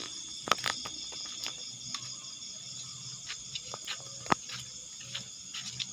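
Night insect chorus of crickets, a steady high-pitched trilling, with a few scattered sharp clicks and knocks from footsteps and handling. The loudest knocks come about half a second in and again past four seconds.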